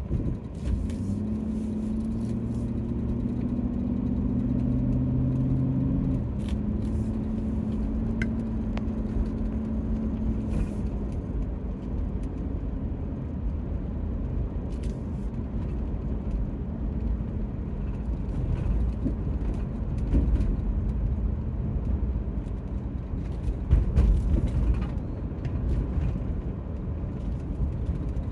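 Car interior road noise and engine rumble while driving, heard from inside the cabin. A pitched engine hum rises slowly over the first few seconds, then drops suddenly about six seconds in. Light clicks and rattles come and go.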